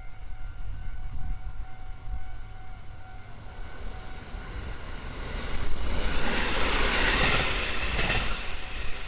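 A train passing close by. A low rumble swells into loud rolling noise about five and a half seconds in, with a few sharp clacks near the end.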